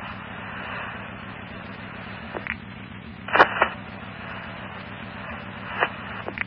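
Fire department radio channel keyed open with no one talking, heard through a scanner: steady static hiss over a low hum, broken by several sharp clicks, the loudest a double click about three and a half seconds in.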